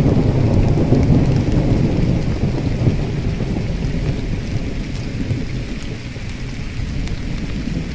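A loud, steady rumbling noise with a fainter hiss over it and no distinct events, easing slightly in the second half.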